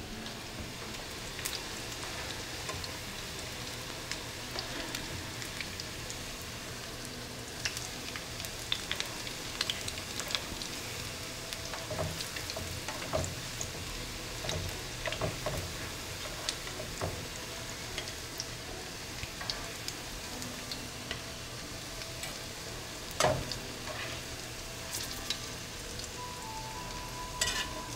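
Shami patties, meat and chickpea patties, frying in oil in a pan: a steady sizzle full of small crackles and pops. There is a sharp clank of a utensil or pan about four-fifths of the way through.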